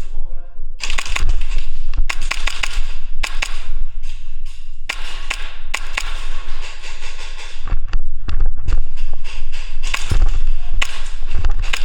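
Airsoft guns firing: irregular sharp pops, single and in quick runs, over steady rustling and low rumbling noise.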